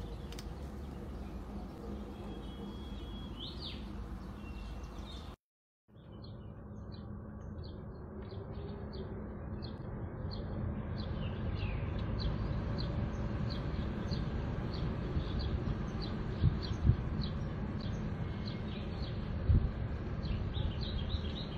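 Small birds chirping over and over in short, high calls above a steady low outdoor rumble of wind. The sound cuts out for about half a second about five seconds in, and a few short low thumps come near the end.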